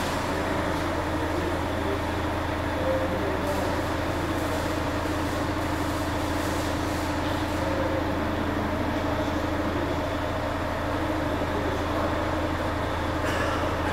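Truck's diesel engine idling: a steady, even low drone.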